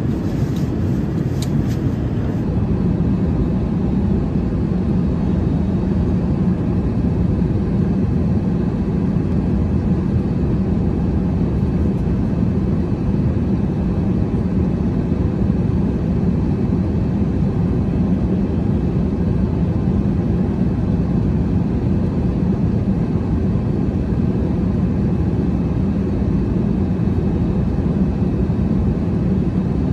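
Steady, deep cabin drone of an Airbus A380 in flight, the rush of airflow and engine noise as heard from an economy seat.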